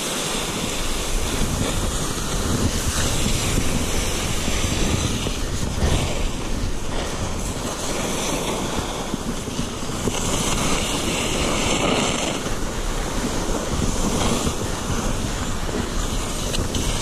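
Steady rushing, scraping noise of a person sliding seated down a snow slope with an ice axe: snow hissing under the body, mixed with wind on the microphone.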